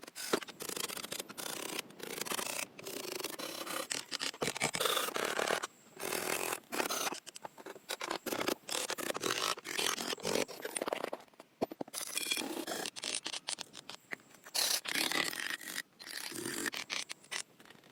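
Close-up rubbing and scraping of hands working building materials, in short bursts with abrupt cuts between them.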